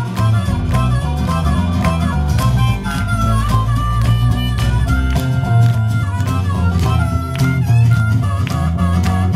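Live blues rock band playing: strummed acoustic and electric guitars over a steady beat, with a harmonica lead playing long held notes in the middle.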